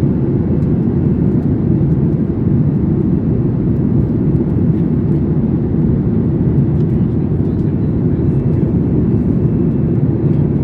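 Steady low rumble inside the cabin of a Boeing 737 airliner: jet engine and airflow noise heard by a passenger.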